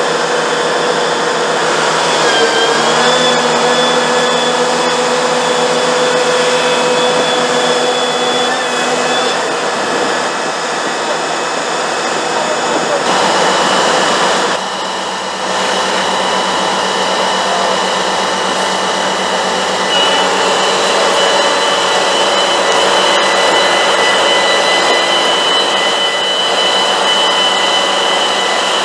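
Kobelco E485 excavator running with its hydraulics under load as it lifts a rolled-over truck back onto its wheels on a chain: a steady mechanical drone and whine whose tones change a few times.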